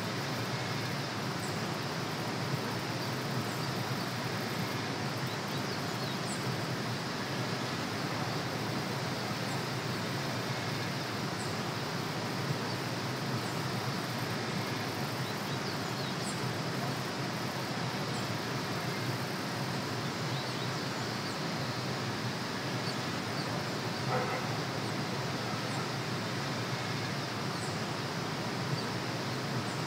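Steady outdoor ambient noise, with faint, brief high chirps every few seconds.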